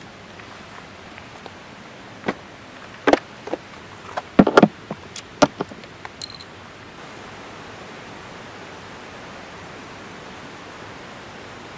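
Steady hiss with a run of sharp knocks and clacks, about a dozen, between about two and six and a half seconds in, the loudest in the middle of the run.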